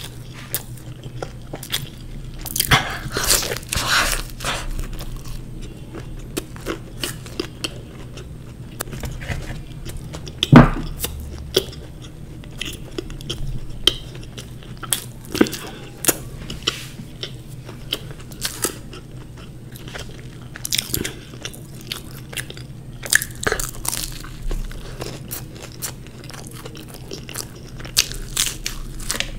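A person eating fried samosas: irregular crunching bites into the crisp pastry and chewing. One sharp thump about ten seconds in is the loudest sound.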